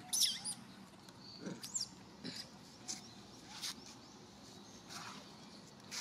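High-pitched squeaks from a young long-tailed macaque, a quick run of squeals about a quarter second in, then several shorter chirps spread through.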